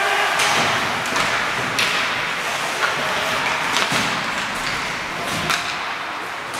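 Ice hockey play: several sharp knocks and thuds from puck, sticks and players hitting the boards, over the steady scrape of skates on the ice.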